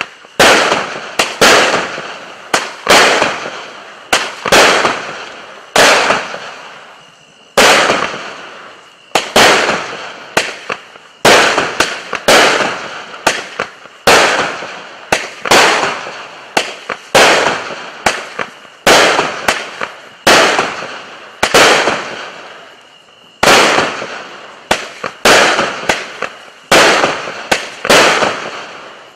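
200-gram consumer firework cake (Magnus Fireworks TMI) firing shot after shot: a sharp report about once a second, each fading away before the next, with a couple of short pauses along the way.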